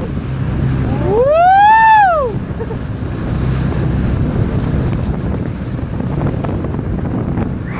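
Motorboat engine running steadily under wind buffeting the microphone, with one loud rising-then-falling cry a little over a second in.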